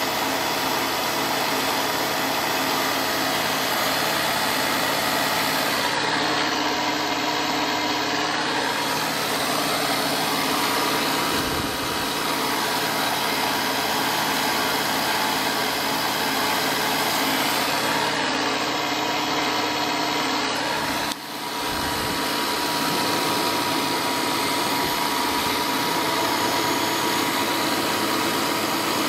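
TOS FNK 2 universal milling machine running, a steady mechanical hum of motor and gears with several held tones, dipping briefly about three quarters of the way through.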